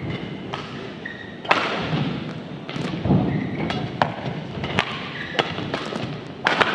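Badminton rackets hitting a shuttlecock back and forth in a rally, a sharp hit about every second over the background noise of the hall.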